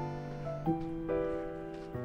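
Background music of held notes and chords that change every half second to a second.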